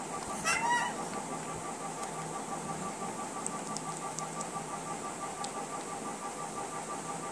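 A baby's short, high squeal about half a second in, over steady room noise with a faint, evenly pulsing whine.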